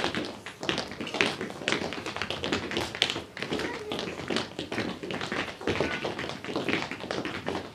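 Tap shoes striking a hard floor: a quick, continuous run of sharp taps, several a second in uneven rhythms, as in tap dancing.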